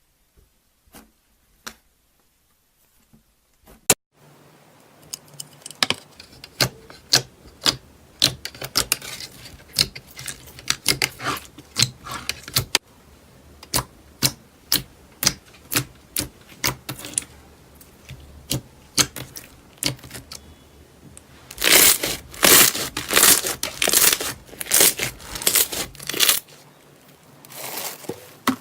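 Slime being squeezed, pressed and stretched by hand, giving many sharp wet clicks and pops at irregular spacing. After a quiet start the popping begins about four seconds in, and turns dense and louder for a few seconds about three-quarters of the way through.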